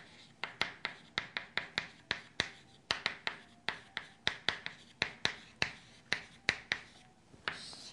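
Chalk on a chalkboard as a heading is written in capital letters: a rapid, uneven run of sharp taps with light scratching, several strokes a second.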